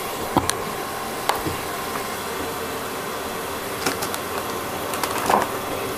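A steel spatula clicking and scraping a few times against a steel pan of cooking tomato masala, over a steady hiss.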